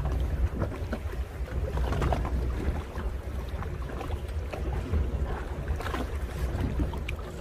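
Wind rumbling on the microphone over water slapping against a small boat's hull, with scattered light knocks.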